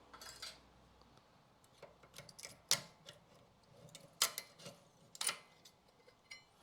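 Light metallic clicks and clinks of thin steel brake pad shims being handled and taken out of a rear brake caliper carrier, with three sharper clicks in the middle.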